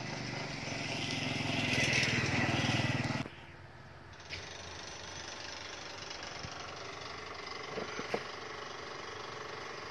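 A small engine running with a rough, pulsing low hum that grows slightly louder and then cuts off suddenly about three seconds in. A fainter steady hum follows, with a few light clicks.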